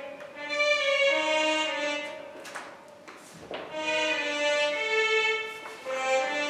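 Violin music: slow, long-held bowed notes in phrases, with a brief lull about three seconds in.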